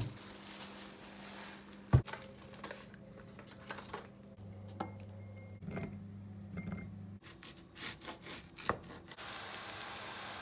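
Kitchen handling sounds: rubbing and scraping on a wooden surface with a few sharp knocks, the loudest about two seconds in. A steady hiss begins about nine seconds in.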